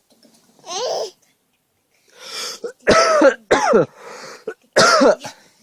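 A run of about five short coughs, several of them high-pitched and voiced, typical of a small child imitating a cough. The loudest come in the second half.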